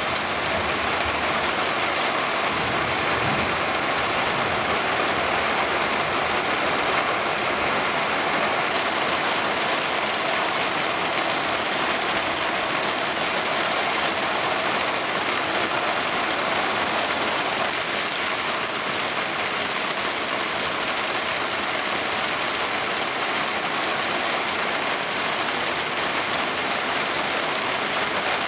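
Rain from a thunderstorm falling steadily, an even, unbroken hiss of a downpour.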